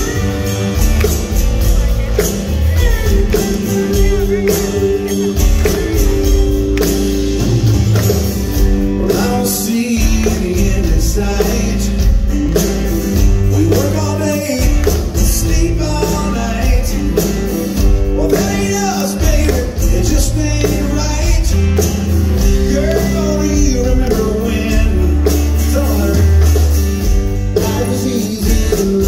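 Live country-rock band playing: electric guitars, bass guitar, drum kit and keyboard, with a lead vocal over the top.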